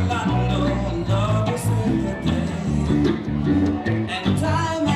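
Live roots reggae band playing, with bass guitar, electric guitar, drum kit and hand drum.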